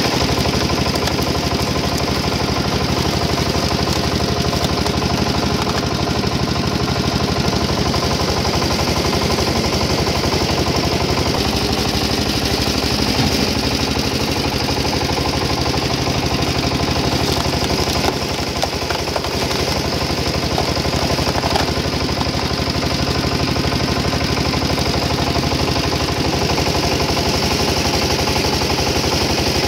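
Engine driving a hydraulic log splitter, running steadily with a fast, even beat while logs are pushed through and split.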